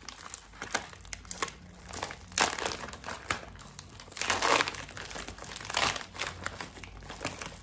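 Packaging crinkling and rustling in irregular handfuls as it is pulled open to get the nail polishes out, loudest about two and a half seconds in and again around four and a half seconds in.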